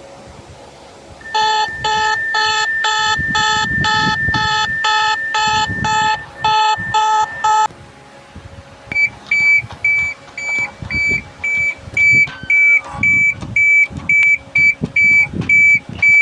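Electronic alarm beeps in two patterns. First comes a run of chord-like beeps, about two a second, over a steady high tone for roughly six seconds. After a short gap comes a higher, single-pitch beep repeating about twice a second to the end.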